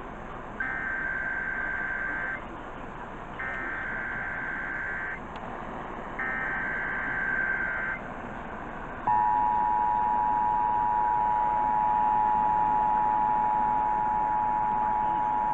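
Emergency Alert System test tones over broadcast radio, with hiss underneath. First come three SAME header data bursts, harsh buzzing bleats of nearly two seconds each with short gaps between. Then, about nine seconds in, the steady two-tone attention signal (853 and 960 Hz) starts and holds.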